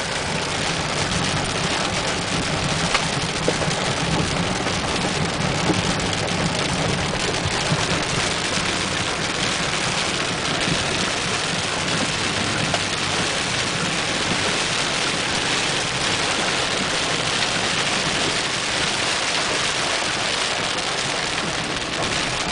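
Steady wash of tyre and water noise from a vehicle driving a wet, muddy dirt road, over a low engine hum, with a few short knocks.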